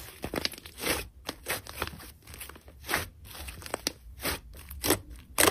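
Soft slime being squeezed and kneaded by hand, giving irregular crackling clicks and pops.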